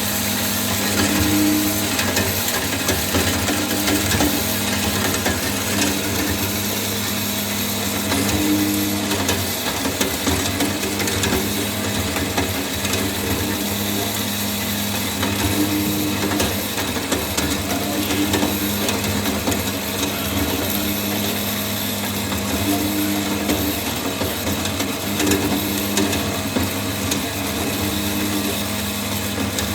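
Pehaka ROB-200S three-phase automatic metal bandsaw running steadily, a constant mechanical hum with a slightly higher tone that swells and fades every few seconds.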